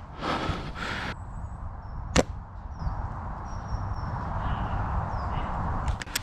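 A single sharp crack about two seconds in: a shot from a bolt-action spring airsoft sniper rifle, after about a second of rustling.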